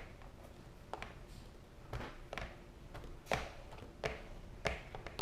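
Irregular light taps and brief rubbing scuffs as a vinyl decal is pressed and smoothed by hand onto a plastic dirt bike number plate to work the air out from under it.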